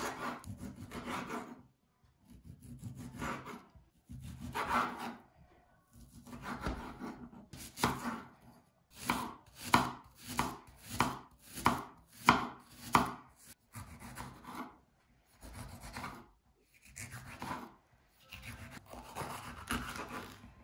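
Kitchen knife cutting on a wooden cutting board, slicing through salami, onion and red pepper. Each cut is a separate stroke with short pauses between, and there is a quicker run of cuts through the onion in the middle.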